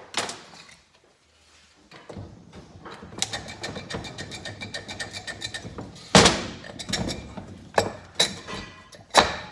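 Cylinder head of a Kawasaki KZ400 parallel-twin engine being worked loose and lifted off the cylinders, with metal scraping, rattling and clinking and several sharp knocks, the loudest about six seconds in. The head gasket is binding as the head comes free.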